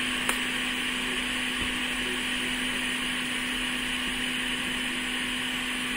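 Steady whirring hum of a small electric motor, running evenly with a constant tone, and one faint click about a third of a second in.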